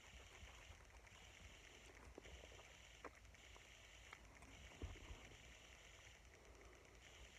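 Near silence: a faint steady hiss with a few soft clicks and rustles of a tissue and fingers handled close to the microphone.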